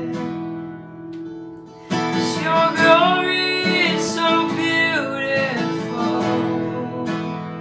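Worship song on strummed acoustic guitar: a chord rings and fades, a new strum comes in about two seconds in, and a voice sings a held, gliding phrase over it before the sound fades near the end.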